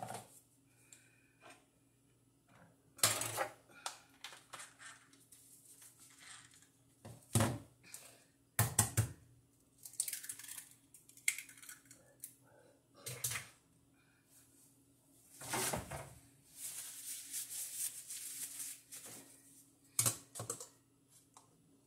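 Scattered knocks and clicks of a clear plastic food container and an egg being handled on a kitchen counter as the egg is cracked open into the container, with a few seconds of light rustling. A faint steady hum runs underneath.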